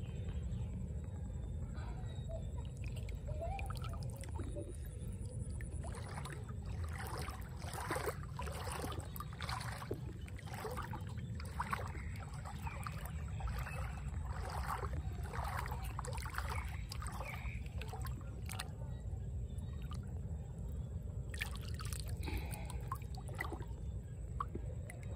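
Shallow floodwater splashing and sloshing as someone wades and moves their hands through it, with repeated splashes through the middle and again near the end. A steady low rumble runs underneath.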